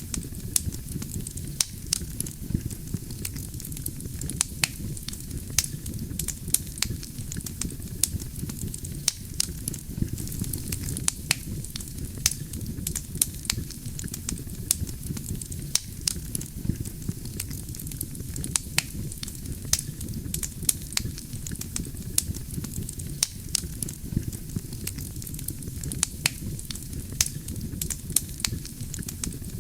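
Wood fire burning with a steady low rumble, the logs crackling and popping in frequent sharp snaps.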